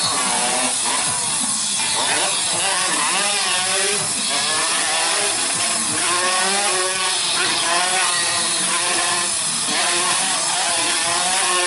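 Small motorcycle engines buzzing and revving, their pitch wavering up and down without a break as the bikes circle inside a steel globe of death.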